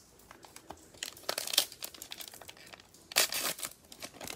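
Cellophane wrapper of a Prizm baseball cello pack crinkling as gloved hands handle it, in two short bursts: about a second in and again about three seconds in.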